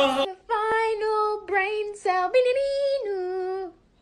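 A high, childlike voice singing a short melody of several notes with brief breaks between them, then stopping shortly before the end.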